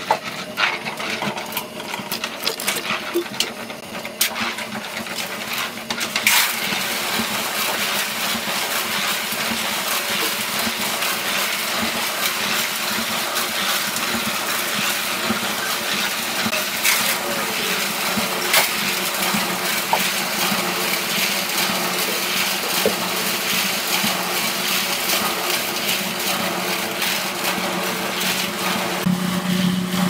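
Wet concrete full of gravel scraping and rattling as it slides down into a trench over a steel rebar cage, over the steady hum of a concrete mixer running. The pour comes in separate rattles at first and becomes one continuous rush about six seconds in.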